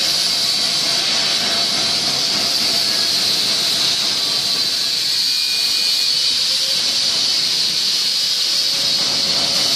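Steady hiss, an even, unchanging noise that holds through the whole stretch.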